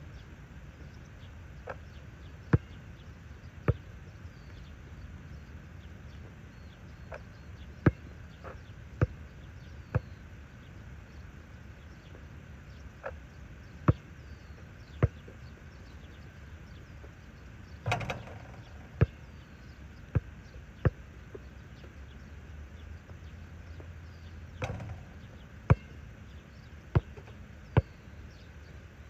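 Basketball bouncing on an asphalt outdoor court: single sharp bounces at irregular intervals. Twice, about two-thirds of the way through and again near the end, a longer impact with ringing after it: the ball hitting the metal hoop.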